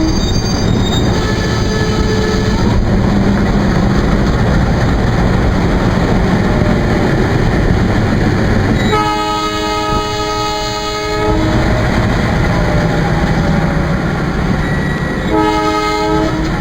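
ALCO WDG3A diesel locomotive horn sounding over continuous train rumble and wheel clatter. There are faint short horn notes in the first couple of seconds, a long blast of about two and a half seconds around nine seconds in, and another blast starting near the end.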